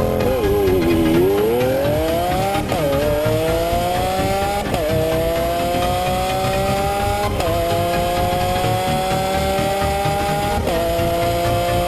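Lamborghini Aventador LP700-4's 6.5-litre V12 accelerating hard from a standing start under launch control, heard from inside the cabin. The revs sag as the car pulls away, then climb through the gears, with four quick upshifts, each a sudden drop in pitch.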